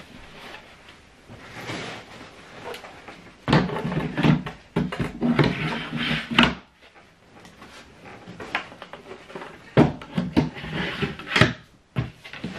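Chipboard desk drawers being slid onto their metal runners and pushed shut: a rumbling slide with knocks about four seconds in, then sharper knocks and bumps around ten seconds in.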